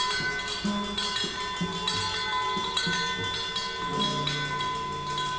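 Free improvised ensemble music: flute with steady high ringing tones, scattered clicks and taps, and short low notes, joined by a held low chord about four seconds in.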